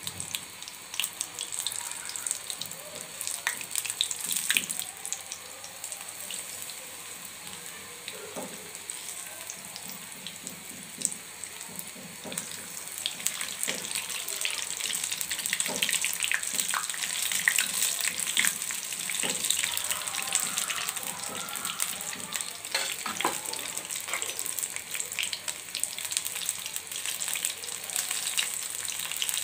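Battered cauliflower pakoras deep-frying in hot oil: a steady sizzle thick with crackles and pops, louder from about halfway through as more pieces fill the pan.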